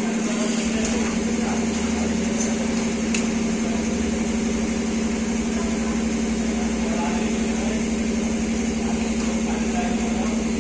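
Steady machine hum with one strong low tone and its overtones, unchanging throughout, like a motor, fan or compressor running in a workshop.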